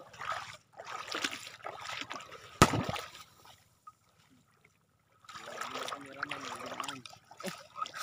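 Shallow seawater splashing and sloshing, with one sharp, loud splash about two and a half seconds in. The sound drops almost to nothing for a couple of seconds, and a low voice is heard near the end.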